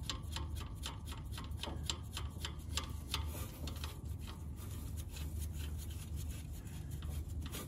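A jam nut being spun by hand down the threaded steel adjuster rod of a Numeric shifter cable makes a run of light clicks and rubbing. The clicks are quick and close together for about three seconds, then thin out, over a steady low hum.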